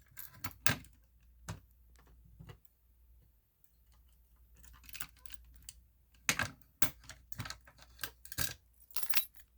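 Keys jangling and light clicks as a key is worked in a Simplex fire alarm pull station: a few scattered clicks, then a busier run of clicks and rattles in the last few seconds.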